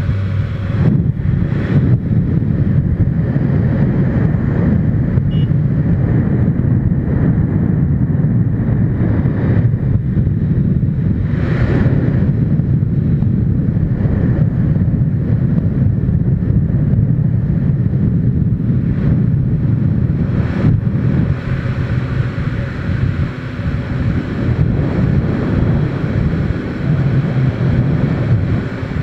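Wind rushing over the microphone of a motorcycle at road speed, with the bike's engine running steadily underneath. There are a few brief, stronger gusts.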